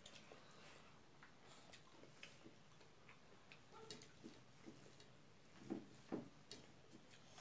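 Quiet eating sounds by hand: faint, irregular clicks and smacks of fingers mixing rice on plates and of chewing, with two louder smacks about six seconds in.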